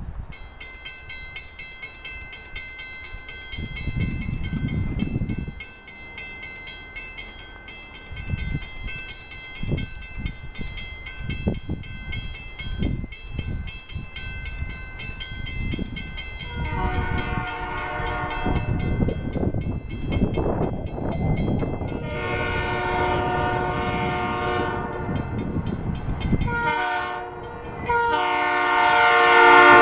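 Railroad grade-crossing bell ringing steadily with the crossing activated for an oncoming train. From about halfway, the approaching South Shore Line electric commuter train blows its horn in the grade-crossing pattern, long, long, short, long, and the last blast runs into the loud arrival of the train.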